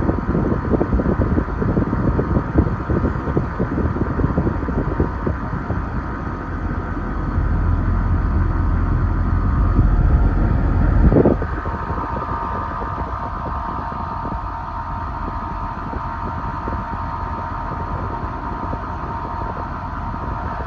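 Outdoor unit of a mini-split system running with its condenser fan turning, a steady hum, while air rushes over the microphone as a low rumble that stops suddenly about halfway through. The compressor does not seem to be running, which the owner takes for the bad compressor a technician diagnosed.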